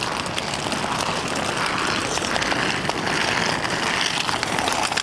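Steady outdoor traffic and street noise, with faint footsteps on paving stones.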